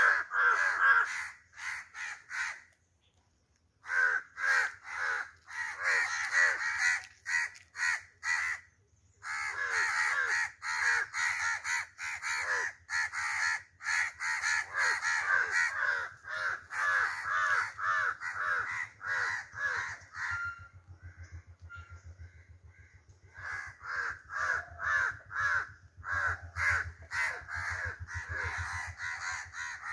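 Crows cawing in fast, harsh runs, several calls overlapping, with a short break about three seconds in and a quieter stretch past the two-thirds mark. This is the excited calling of crows gathered around a chick that has fallen from its tree.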